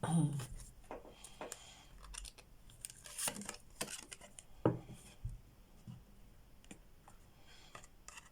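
Tarot cards being handled: scattered rustles, light scrapes and soft clicks as cards are slid and laid down, with a few louder strokes about three seconds in and near the middle.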